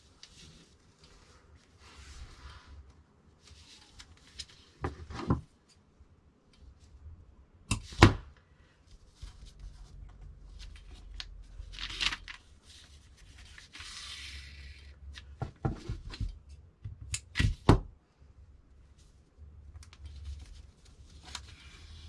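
Paper pattern pieces and fabric rustling as they are handled on a cutting table, with several sharp knocks as pattern weights and scissors are set down on the tabletop; the loudest knock comes about eight seconds in, and a quick cluster of them near the end.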